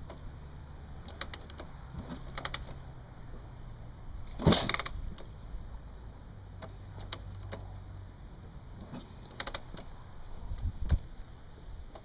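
Kick-starting a 1983 Honda CR250 two-stroke motocross bike: a series of clanks and rattles from the kick lever and bike as it is kicked over repeatedly without the engine catching, the loudest about four and a half seconds in.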